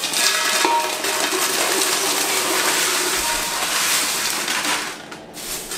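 Fried cornflakes and fried poha poured from a steel bowl into a large aluminium pot: a dense, steady rustling clatter of dry flakes sliding against metal that dies away about five seconds in.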